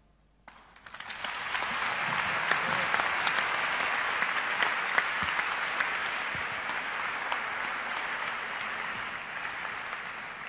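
Audience applauding: after a brief silence the clapping builds over about a second, holds steady, then slowly thins out near the end.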